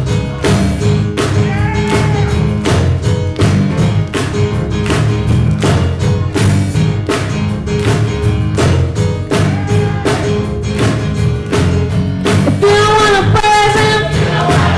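Live gospel band playing an instrumental vamp: bass line and drum kit with a steady beat of about two hits a second, under faint voices. Choir singing comes back in strongly near the end.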